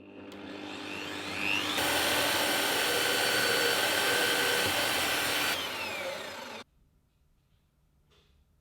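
A power tool's motor spins up, runs at full speed with a harsh hiss for about four seconds, then winds down and cuts off abruptly about six and a half seconds in.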